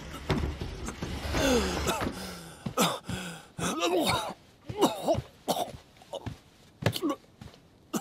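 A man coughing hard in a string of irregular, pained fits, each with a strained sound in the throat.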